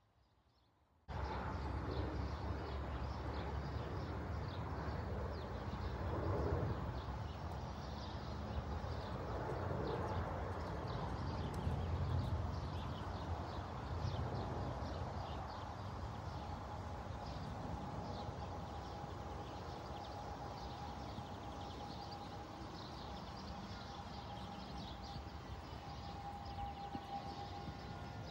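Horse cantering in a sand arena: hoofbeats under a steady low rumble of wind on the microphone, starting abruptly about a second in. A faint steady high whine joins about halfway through.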